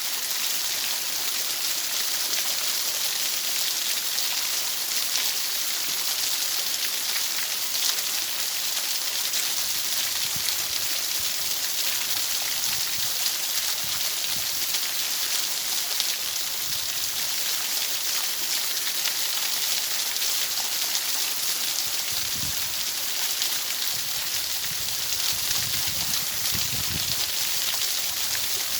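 Steady, even rain-like water hiss, bright and high, used as masking noise, with faint low rumbles here and there, most around the middle and over the last few seconds.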